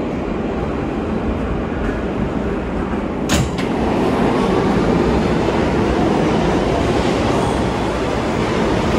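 Subway train noise in an underground station: a steady rumble with one sharp clank about three seconds in, then a louder rumble as a train moves along the platform.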